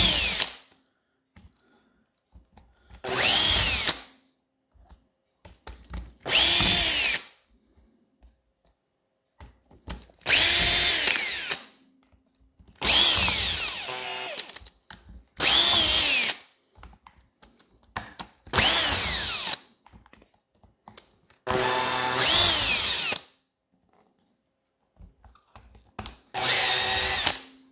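Small cordless screwdriver with a T10 Torx bit running in about nine short bursts of a second or so, its motor whine rising and falling each time, as it backs out the screws of an impact driver's casing one by one.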